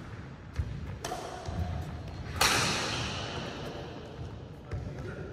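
Badminton rackets striking a shuttlecock during a rally: several sharp hits that ring out in a large echoing hall, the hardest about two and a half seconds in. Low thuds of footsteps run underneath.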